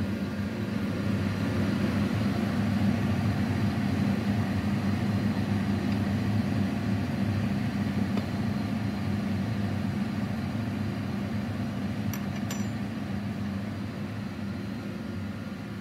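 A steady low machine hum that slowly fades toward the end, with two faint clicks about twelve seconds in.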